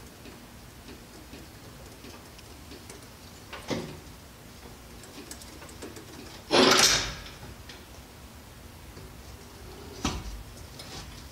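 Heavy truck differential third member being worked out of its axle housing: a couple of short knocks, and about six and a half seconds in one louder, longer clunk lasting under a second.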